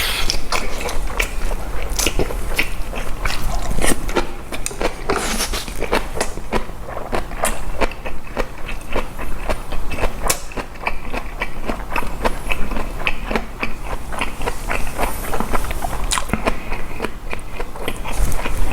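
Close-miked chewing of boiled pork, fresh cabbage kimchi and rice: irregular wet smacks and crunches, several a second, without a break.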